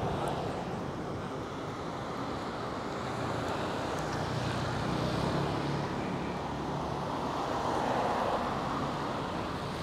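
Steady outdoor traffic and road noise, with wind on the microphone.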